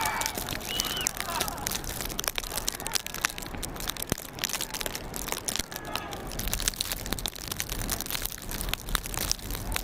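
Voices of sledders calling out on the hill, a short high call about a second in and a fainter one about six seconds in, over a steady crackling, crunching noise.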